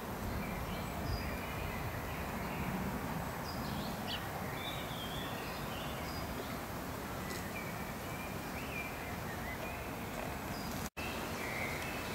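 Woodland songbirds calling and singing in short chirps and phrases over a steady outdoor background noise, with a brief dropout near the end.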